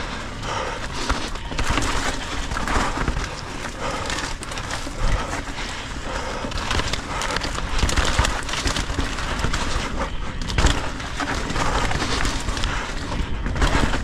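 Santa Cruz Megatower mountain bike ridden fast down a rough trail: continuous noise of tyres rolling over dirt and rocks, with frequent knocks and rattles from hits on the terrain.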